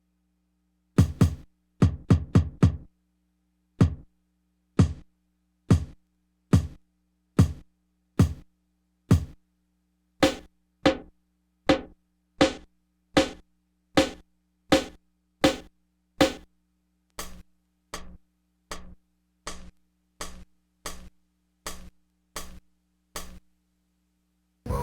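One sampled drum hit triggered again and again on an SP-1200-style sampling drum machine, heard through its filtered output. First comes a quick flurry of five hits, then single hits a little over one a second, which turn quieter about two-thirds of the way through.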